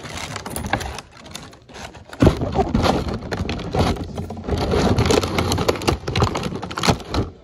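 Loud rustling, crackling and scraping from close handling right against the microphone, with many small clicks, growing heavier about two seconds in.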